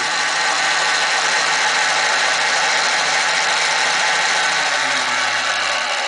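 Dell Dimension 2400 desktop's CD drive making its recurring fault noise, a loud, steady mechanical whir. Near the end a low hum falls in pitch as the power button is held to force the machine off and the noise starts to wind down.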